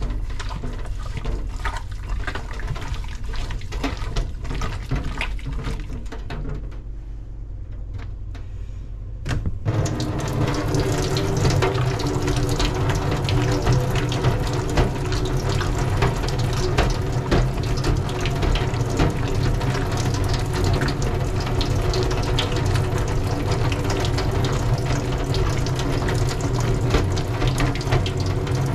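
Hands working in a stainless steel sink with small clicks and rubbing, then about a third of the way in the kitchen tap is turned on and water runs steadily, splashing onto the steel sink.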